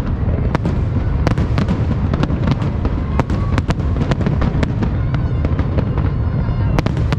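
Fireworks going off: many sharp, irregular cracks and pops over a constant low rumble of further explosions.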